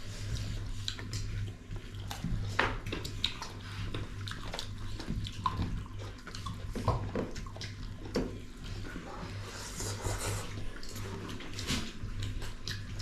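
Close-up eating sounds of rice and pork broth: wet chewing, lip smacks and slurps in an irregular run of small clicks and squelches. A low steady hum runs underneath.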